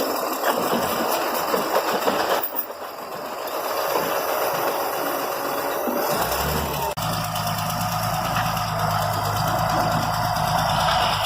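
Road-works machinery removing old road surface: clattering and rattling for the first couple of seconds, then, from about six seconds in, a heavy engine running steadily.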